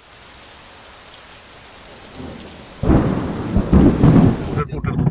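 Thunderstorm sound effect: a steady hiss of rain, then a loud rolling thunderclap about three seconds in that cuts off abruptly. Near the end it gives way to the rumble and knocks of a car driving over a rough dirt track.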